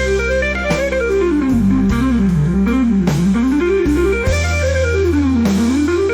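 AI-generated instrumental blues music: a guitar plays a quick line of single notes that climbs and falls repeatedly over steady bass notes.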